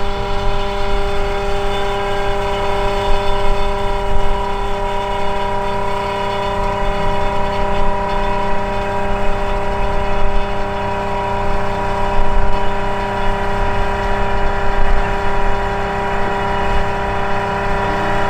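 GippsAero GA8-TC320 Airvan's turbocharged Lycoming six-cylinder piston engine idling steadily on the ground, its propeller turning, as an even hum with several held tones.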